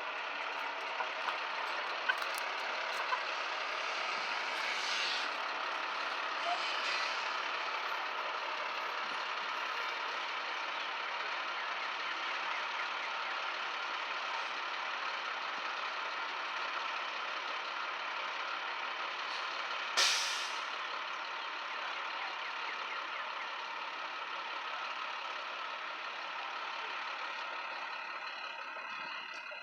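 A vehicle's engine running steadily, with one brief loud noise about twenty seconds in.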